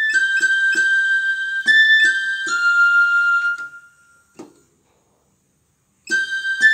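Flute-like synthesizer notes triggered from a Roland PK-5 MIDI pedalboard: a run of short and held notes changing pitch, each with a soft thump of a pedal key. The notes stop about three and a half seconds in, and after a short silence a new held note starts near the end.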